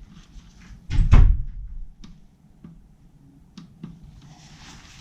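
A single heavy thud about a second in, with a short ringing tail, followed by a few light clicks and taps.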